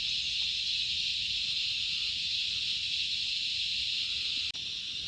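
Steady, high-pitched chorus of crickets, with a brief break about four and a half seconds in.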